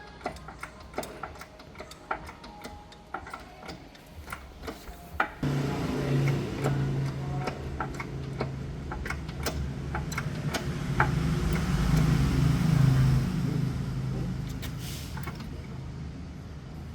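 Repeated small sharp clicks and taps of tools at work on a pickup truck. About five seconds in, a low steady motor hum starts and runs on with small rises and falls, the clicks continuing over it.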